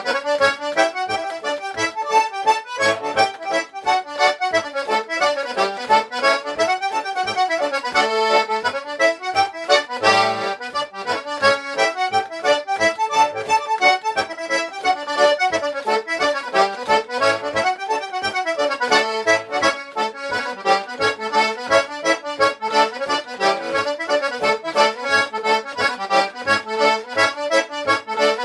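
Early-1930s Walters single-row button accordion (melodeon) with six sets of reeds, played solo: a traditional Irish highland, the melody running over regular bass strokes.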